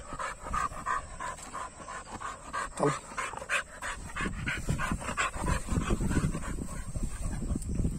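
Dog panting rapidly, quick even breaths a few times a second.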